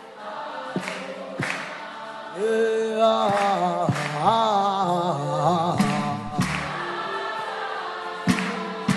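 Congregation singing a worship chant together, with held notes and one voice wavering in pitch through the middle, over sharp percussive hits about once a second.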